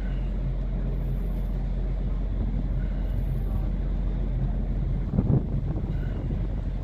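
Steady low ship machinery rumble, with wind buffeting the microphone; a stronger gust hits about five seconds in.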